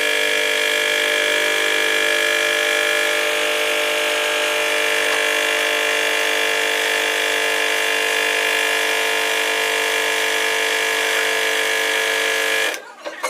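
Cylinder-sleeve press running steadily: its pump motor makes a loud, even hum as the ram pushes a sleeve into the bore of a six-cylinder diesel block. The hum cuts off suddenly near the end.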